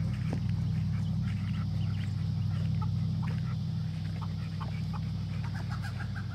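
A bird's short scattered calls over a steady low hum.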